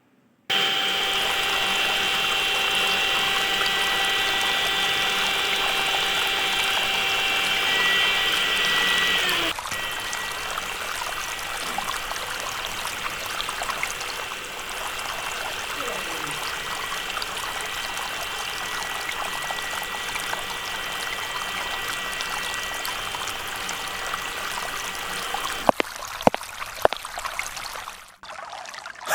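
Water pouring and trickling steadily over a steady whine. About nine and a half seconds in the whine dips in pitch and everything drops quieter; a few sharp clicks come near the end.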